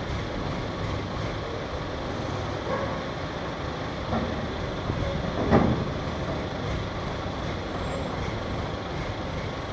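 Mobile crane's diesel engine running in a steady low rumble while it lifts. A single knock sounds about five and a half seconds in.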